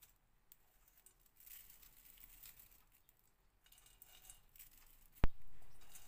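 Dry, crisp poha chivda and sev rustling and crackling on newspaper as sev is added to the mix, in two short stretches. About five seconds in comes a single sharp click, the loudest sound, followed by a hiss that fades away.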